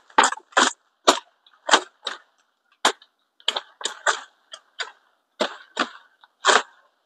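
Coffee tree twigs and shoots snapping as they are broken off during pruning, with leaves rustling between snaps. The sharp snaps come in a quick, uneven series, about two a second.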